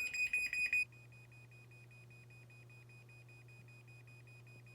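Rapid, evenly spaced, high-pitched electronic beeping, several beeps a second, from a smart garage door controller warning that the door is about to close by remote. About a second in the beeping drops much quieter and a low steady hum begins: the garage door opener's motor running as the door closes.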